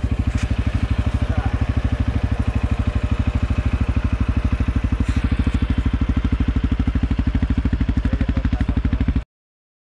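CFMoto 450L ATV's single-cylinder engine running at a steady speed, a loud, even low pulsing. It cuts off abruptly about nine seconds in.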